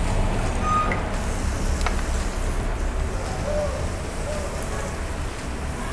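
Steady low rumble of restaurant background noise with a faint hiss over it, and one sharp click about two seconds in.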